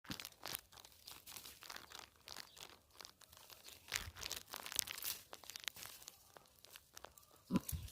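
Faint, irregular rustling and crackling of blackberry bramble leaves and stems being handled while the berries are picked by hand, with one low thump near the end.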